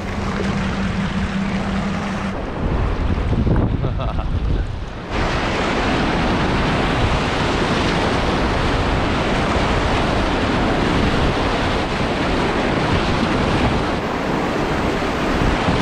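Whitewater rapid rushing loudly around a kayak, beginning abruptly about five seconds in, with wind buffeting the microphone. Before that, calmer river water with a steady low hum.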